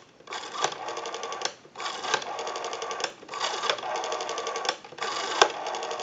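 Western Electric 302 telephone's rotary dial being dialed: four times the dial is wound round and spins back with a rapid, even clicking whir, each return lasting a bit over a second, with short pauses between. The returns are smooth and steady, the sign of a dial working properly.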